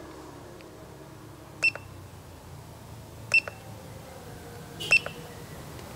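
Handheld car battery tester beeping as its buttons are pressed during setup for a battery test: three short clicks, each with a high beep, about one and a half seconds apart.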